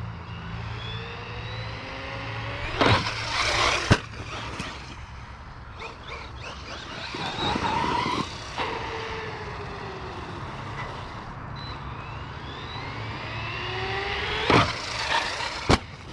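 Electric RC truck being driven, its motor whining up and down in pitch with the throttle, over tire noise on the ground. A few sharp knocks come about three to four seconds in and again near the end.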